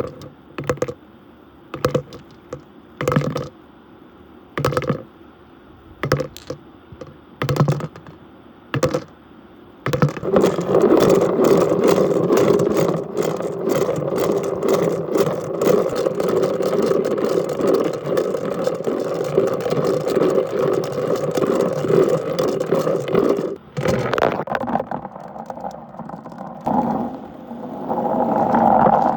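Glass marbles clattering against each other: scattered single clicks at first, then about ten seconds in a dense, continuous rattling that lasts about thirteen seconds before it eases off.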